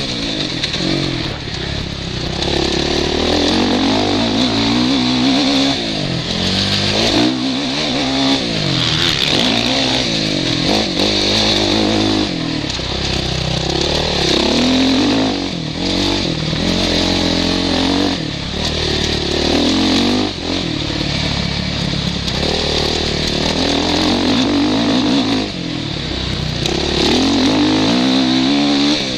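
Suzuki RM-Z450's single-cylinder four-stroke engine, heard from the rider's helmet, revving up hard and dropping back over and over as the throttle is opened and closed.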